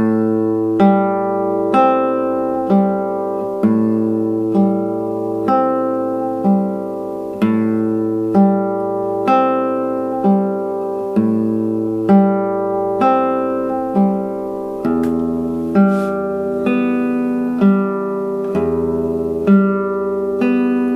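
Nylon-string classical guitar played fingerstyle at a slow, even tempo: an arpeggio study with bass notes ringing under repeating broken-chord patterns, a new pattern starting a little under once a second. About two-thirds of the way in the bass drops to a lower note for a few seconds, then returns.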